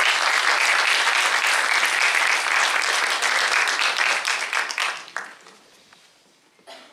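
Audience applauding, dense clapping that dies away about five seconds in.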